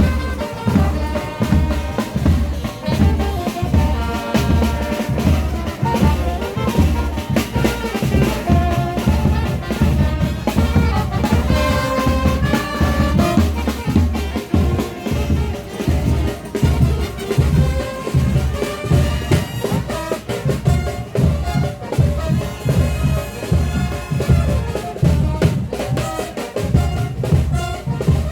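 A frevo brass band playing live: trumpets and trombones play the melody over a steady, driving beat of bass drum and snare.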